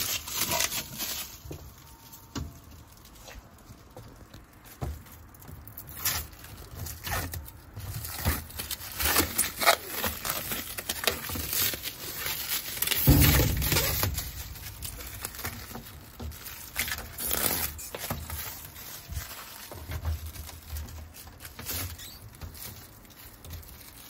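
Protective plastic film being peeled off a new washing machine's lid, crackling and crinkling irregularly, with a dull bump about halfway through.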